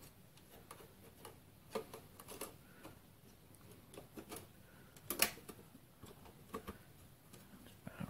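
Scattered faint clicks and taps of a video card's metal backplate bracket being worked against a PC case's expansion-slot opening, the sharpest tap about five seconds in. The bracket will not quite seat: it doesn't go down far enough into the slot.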